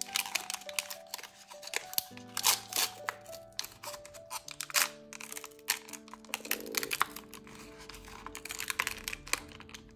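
Background music of held notes, with toy packaging being crinkled and torn open by hand in many short, sharp crackles.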